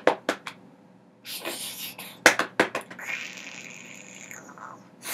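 Mouth-made cartoon sound effects: a quick run of sharp clicks, a short hiss, three more clicks, then a longer hissing rush.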